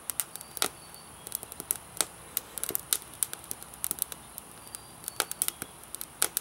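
Twigs crackling and popping as they burn in a small homemade rocket stove, with irregular sharp snaps several times a second. The fire is still catching and smoky, just before the stove starts burning off its own smoke.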